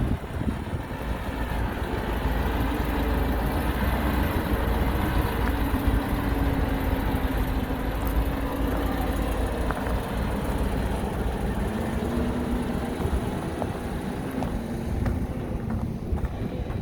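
Heavy diesel engine of earthmoving machinery running steadily, its pitch drifting slowly up and down over a deep rumble, with a few faint clanks.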